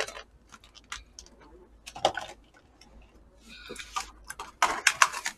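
Plastic takeout containers and lids being handled: scattered light clicks and clatter, busier near the end, with a brief laugh about four seconds in.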